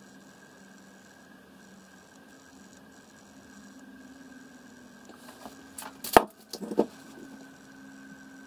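Small handling clicks and knocks, as of plastic makeup items being picked up and moved, bunched about five to seven seconds in, the loudest near the six-second mark. Under them runs a faint steady electrical hum.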